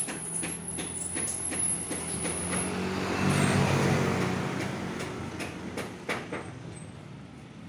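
A motor vehicle passing by: its engine noise swells to a peak about halfway through and then fades away. A few light clicks are heard around it.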